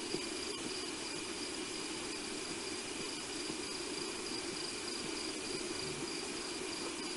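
Night insects, crickets, trilling steadily at two high pitches, over a constant lower drone.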